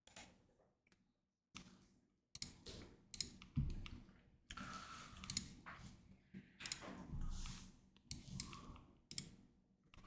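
Faint computer mouse clicks, about a dozen at irregular intervals, as web pages are clicked through.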